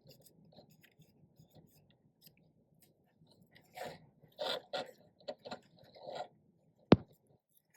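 Painter's tape and small plastic parts being handled and pressed down: a run of crinkly rustles about halfway through, then one sharp click near the end.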